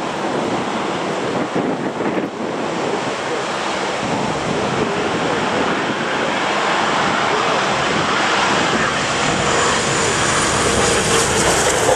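Jet engines of an Embraer ERJ-145-family regional jet on approach, growing louder as it comes closer. The engine sound is mixed with gusting wind and rain hitting an umbrella held over the microphone.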